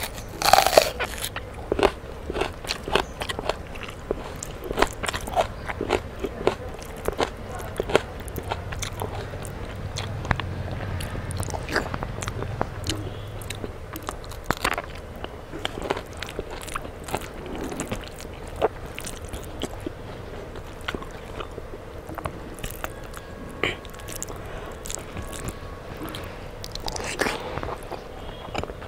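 Close-miked eating: a loud crunching bite into a raw red onion about half a second in, then steady chewing with many small crunches and wet mouth clicks.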